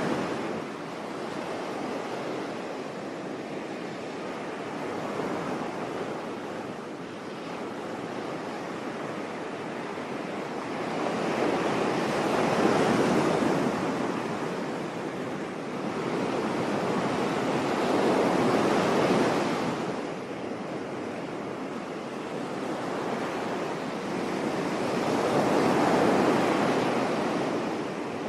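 Sea waves washing onto a beach: a steady rush of surf that swells and falls back in slow surges, three louder waves in about half a minute.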